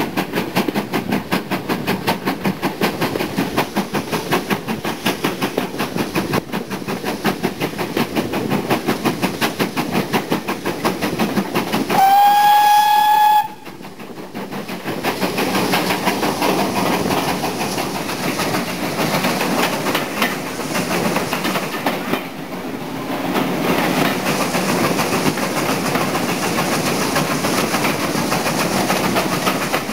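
A train hauled by a GWR Modified Hall 4-6-0 steam locomotive runs with a fast rhythmic clatter. About twelve seconds in, the locomotive's whistle sounds once for about a second and a half, rising slightly in pitch. The train then runs into a tunnel, and the running noise continues closed in by the tunnel walls.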